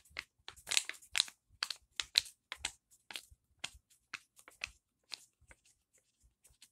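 Paper book page flipped back and forth quickly (a Flip-O-Rama), making a quick series of crisp paper flaps, about three a second, that fade out near the end.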